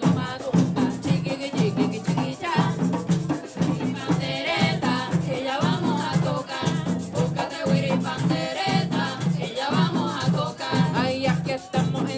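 Background music with a quick, steady percussion beat and a singing voice.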